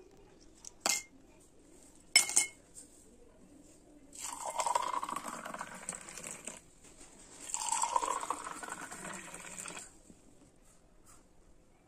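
Two sharp clinks against glass, then carrot juice poured in a stream into two drinking glasses one after the other, each pour lasting a couple of seconds with a tone that rises as the glass fills.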